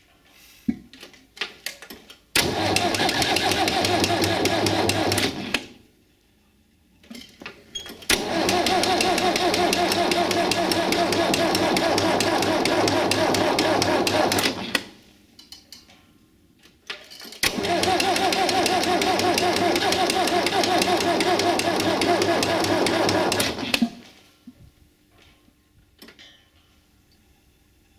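Electric starter cranking the cold UTB-Fiat 445 DT tractor diesel at −15°C in three attempts of about three, seven and six seconds. Each attempt starts suddenly and cuts off abruptly without the engine catching, with a few clicks in the quiet gaps between.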